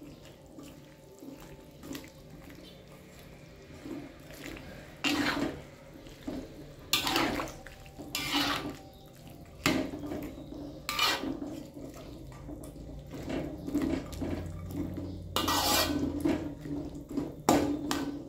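Metal spatula scraping and knocking against a wok in separate strokes every second or two, pushing cabbage down into simmering broth, with soft sloshing of the liquid.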